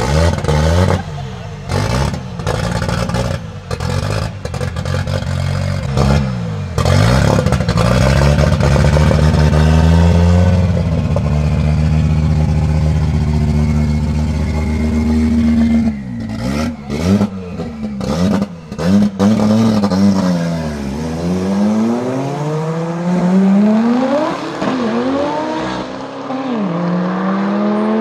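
Tuned turbocharged five-cylinder engine of an Audi Ur Quattro revving hard with repeated sharp exhaust bangs, then held at steady revs. More bangs follow, then the engine accelerates away with its pitch rising and dropping at each gear change.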